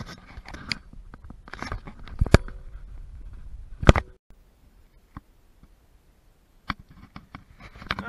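Hands working the pulled-back insulation carpet against the car's metal body: rustling and scraping with several sharp knocks, the loudest about two and a half and four seconds in. After that, near quiet with a few isolated clicks.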